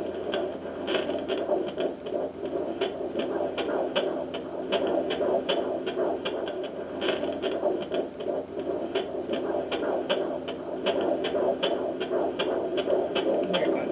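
Facelake handheld fetal Doppler's speaker playing a 14-week fetus's heartbeat: a fast, even whooshing pulse, about two to three beats a second, over a steady hiss. The fast rate marks it as the baby's heartbeat rather than the mother's.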